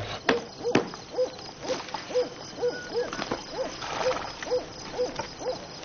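A night animal gives a steady series of short, low calls, about two a second, each one rising and falling in pitch. Two sharp clicks come near the start.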